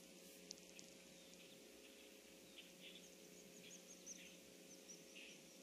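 Near silence: faint bird chirps, with a quick run of high notes midway, over a steady low hum.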